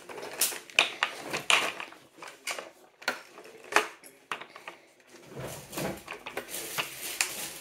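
Plastic clicks and knocks as a Dyson DC08's floor tool and extension wand are handled and pushed together, a string of separate sharp knocks that gets busier near the end.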